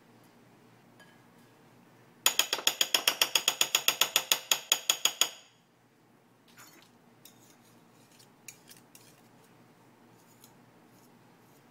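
A utensil whisking vegan mayo and chili paste together in a bowl: a run of rapid, even clicking strokes, about eight a second, for some three seconds, then a few faint taps.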